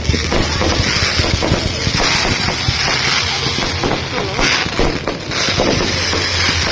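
Crowd of people talking indistinctly over a steady noisy background, with many small crackles throughout.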